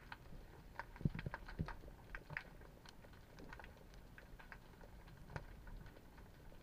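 Underwater ambience picked up by a camera underwater: faint, irregular clicks and crackles, with a few soft low thumps about a second in.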